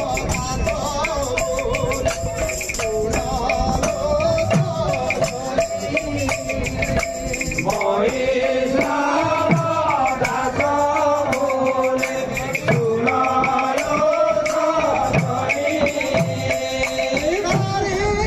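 Odia devotional kirtan music: men singing a chant over red two-headed barrel drums (mridanga) beaten in a quick rhythm, with jingling hand cymbals. The singing grows stronger about halfway through.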